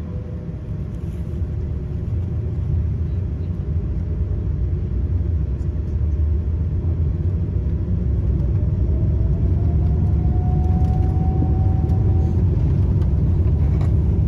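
Boeing 787-10 jet engines spooling up for take-off, heard from inside the cabin: a deep rumble that grows steadily louder, with a thin whine rising in pitch about two-thirds of the way through.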